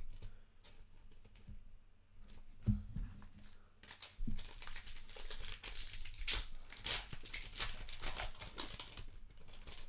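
A few light clicks and taps of card handling, then from about four seconds in several seconds of crinkling and tearing as a trading-card pack wrapper is torn open.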